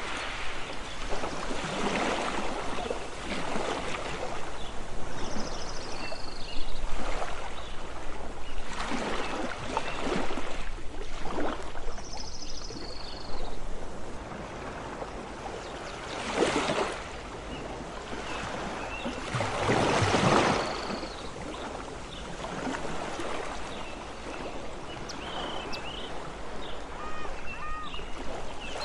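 Sea waves washing onto a beach, the rushing noise swelling and falling every few seconds, with a few short high chirps here and there.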